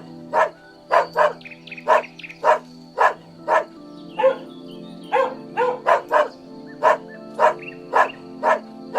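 Dog barking repeatedly, about two barks a second, over steady background music.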